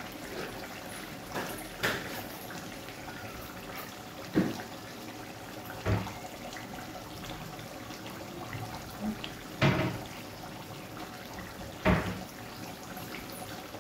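Chicken curry simmering in an open kadai on a gas burner: a steady low hiss, broken every two seconds or so by a sharp pop as the thick gravy bubbles.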